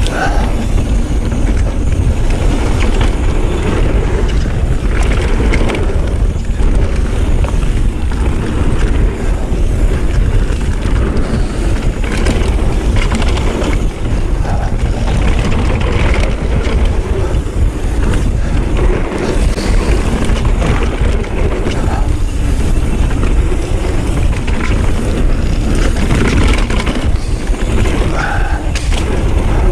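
Wind rushing over the camera microphone and tyres rolling over a packed dirt trail on a fast mountain-bike descent, with frequent small knocks and rattles from the bike.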